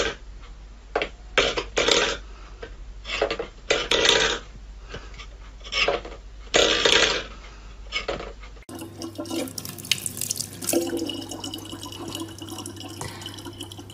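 Stainless steel bowl knocking and scraping on a wooden floor in irregular clanks as a cat bats it with its paw. About nine seconds in, this gives way to a tap running a thin stream of water into a plastic water bottle.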